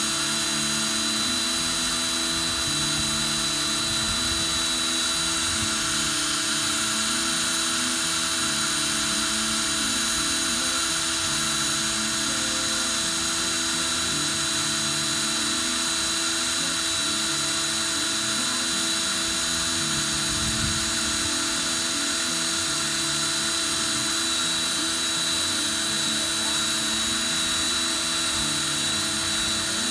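Cordless drill running steadily, spinning steel wool wound around a bit inside a cart wheel's axle hole to scrub out paint that makes the hub too tight for the axle.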